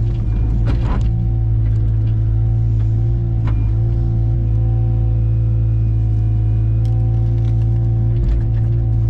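Diesel engine of heavy land-clearing equipment running steadily at an even speed, with a few sharp knocks and cracks in the first second and a few more later on.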